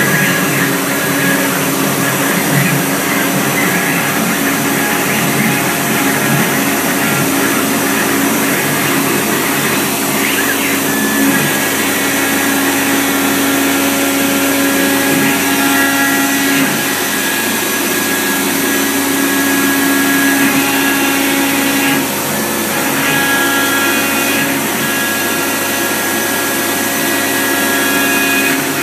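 OMNI CNC router spindle cutting wood as it engraves a relief, running steadily with a low hum and a high whine over a dense rush from the cutter and dust-extraction vacuum.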